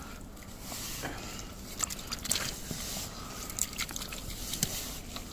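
A small steel spade digging into wet, packed tidal-flat sand, making irregular short scrapes and crunches as it cuts around a burrowing sea anemone.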